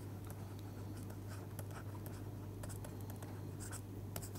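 Stylus writing on a pen tablet: short, faint scratches and taps as words are handwritten, over a steady low hum.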